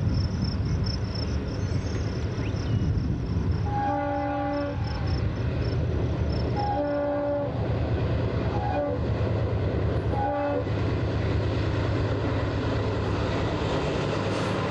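Union Pacific diesel freight locomotives approaching under power with a steady low engine and wheel rumble, sounding a chord horn four times, several notes at once: two long blasts, then two shorter ones.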